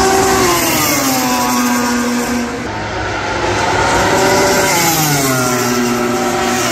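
MotoGP racing motorcycle engines at high revs on the track. The engine note falls over the first couple of seconds, climbs again about three seconds in, then drops and levels off near the end.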